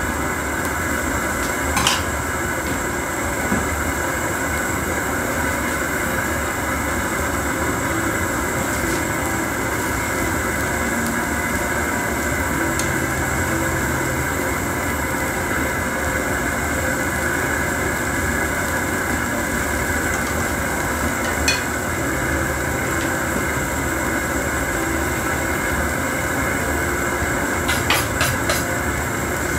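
Gas camp-stove burner running with a steady rushing hiss under a pan of simmering soup, with a few light clinks and knocks of utensils, a small cluster of them near the end.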